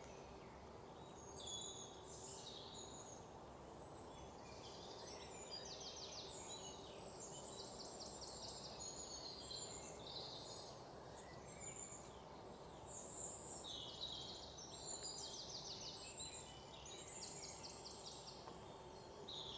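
Small songbirds chirping and trilling faintly, many short calls and rapid trills, over a faint steady hum.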